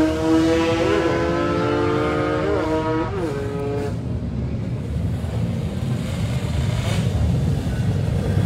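Race motorcycle's engine accelerating away down the course through the gears, its pitch climbing and then dropping at each of about three upshifts, and dying away about four seconds in. A steady low rumble of background noise remains after it.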